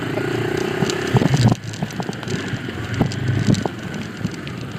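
ATV engine running while riding, with irregular knocks and clatter from the machine jolting over rough ground, loudest about a second in.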